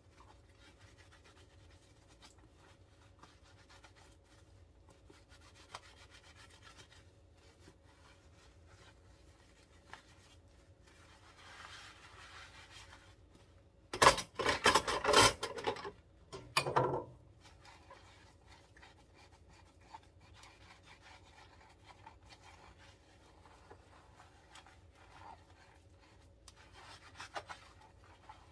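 Green scrubbing sponge rubbing over a plastic food container and then a porcelain cup, a soft steady scrubbing. About halfway through comes a couple of seconds of loud knocks and clatter in the steel sink, then a shorter burst.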